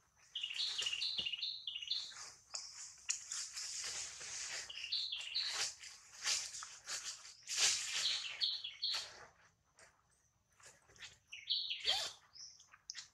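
Many short, high-pitched chirping calls, often in quick pairs, mixed with bursts of hiss; the calls thin out near the end before one more strong call.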